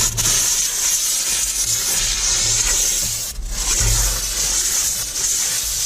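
Detailing steamer's jet tip blasting steam into leather seat stitches to blow out the dirt: a loud steady hiss that swells and eases about once a second and cuts out briefly a little past the middle.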